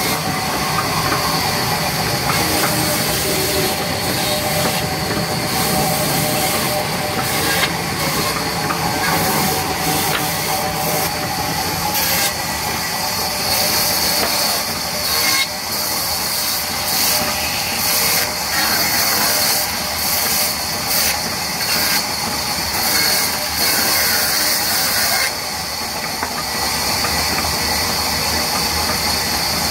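Large sawmill band saw running and ripping wooden planks: a steady, loud mechanical noise with a high hiss from the blade, the hiss growing brighter about halfway through and dipping briefly between cuts.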